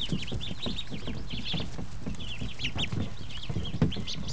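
A brooder full of day-old Pekin, Rouen and Muscovy ducklings peeping, many short high cheeps overlapping without a break, with soft low knocks and rustling underneath.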